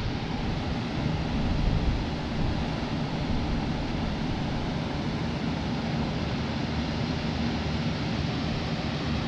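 A large group of electric fans (box fans, pedestal, table and floor fans) running together: a steady, even rush of air with a faint low hum underneath.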